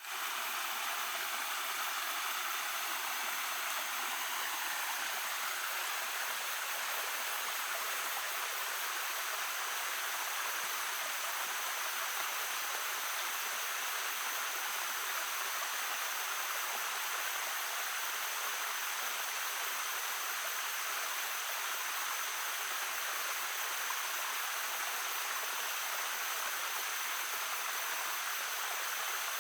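Small stream babbling steadily, an even, unbroken rush of running water that fades in at the very start.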